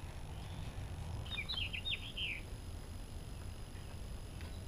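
A songbird singing a quick run of short, falling chirps about a second in, over a steady low rumble.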